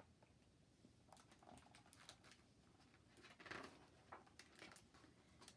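Near silence with faint rustles and small clicks of a large picture book being handled, its page turned with a slightly louder paper rustle about three and a half seconds in.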